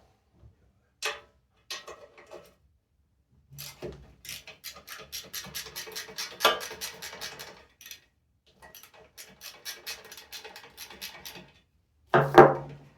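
Socket ratchet clicking in quick, even runs as the shroud bolts are worked loose, with a few separate clicks and a louder knock near the end.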